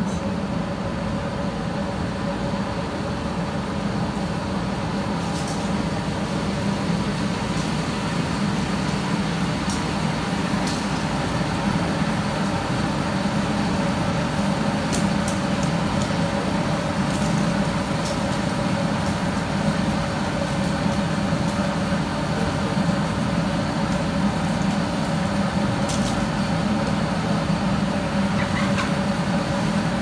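Electric butter churn's motor running steadily with a constant hum, churning to make butter, with a few faint ticks.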